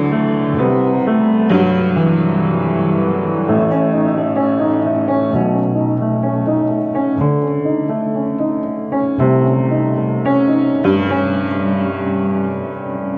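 Piano playing slow, sustained chords, a new chord struck every few seconds and left to ring.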